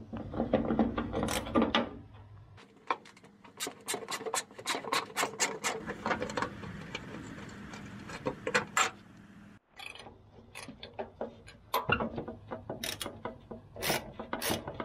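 Socket ratchet wrench clicking in several quick runs, with metal scraping, as the tractor's hood bolts are loosened.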